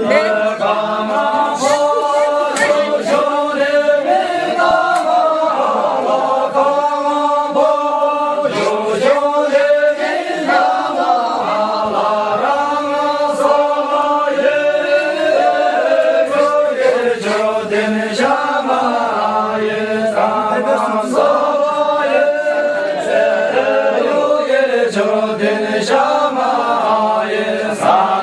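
A group of voices singing a song together in unison, unaccompanied, with long held notes that slide between pitches.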